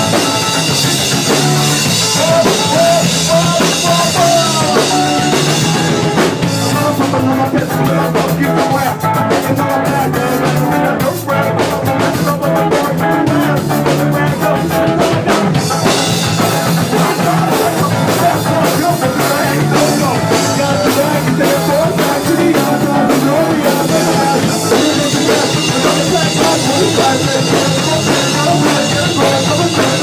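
Rock band playing live: distorted electric guitar over a drum kit, loud and continuous. Partway through, the cymbals drop out for several seconds while the guitar and drums carry on, then the cymbals come back in.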